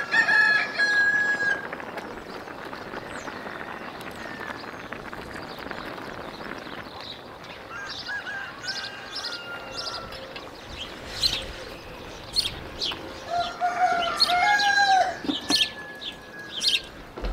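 Chickens calling outdoors, with short clucks through the second half and a rooster crowing about fourteen seconds in; the loudest calls come right at the start and with the crow.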